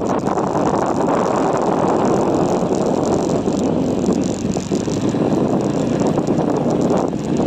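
Steady rush of wind over the microphone and road noise while riding a motorcycle, with no clear engine note standing out.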